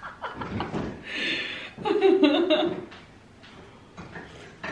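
A woman laughing and chuckling in short breathy bursts, then quieter, with a couple of faint clicks near the end.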